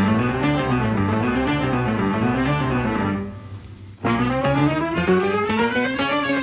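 Instrumental background music. It drops away about three seconds in and starts again abruptly a second later.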